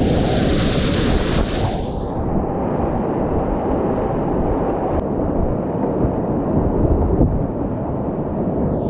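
Whitewater rapids rushing loudly right around a kayak, with a bright splashing hiss over the roar in the first two seconds and again near the end as the boat punches through breaking waves.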